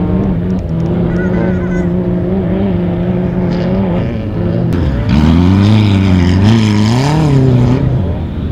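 Off-road dune buggy engine running at a steady pitch. About five seconds in, a buggy comes close and gets louder, its engine revving up and down with a rush of noise, then easing off near the end.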